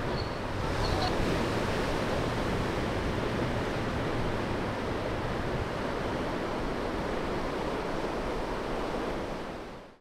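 Ocean surf: a steady wash of waves, fading out near the end.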